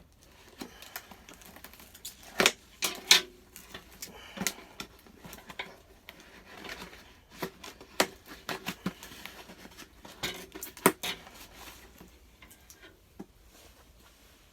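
Hands handling and working at the packaging of a boxed toy: irregular clicks, taps and rustles, with a few sharp knocks, as the package resists being opened.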